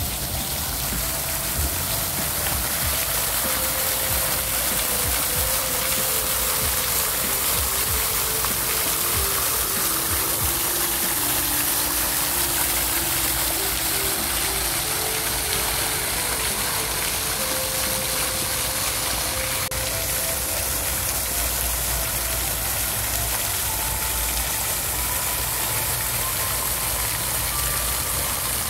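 Fountain jet spraying up and splashing steadily back into its stone basin, a continuous hiss of falling water. A faint tune of single notes runs quietly underneath.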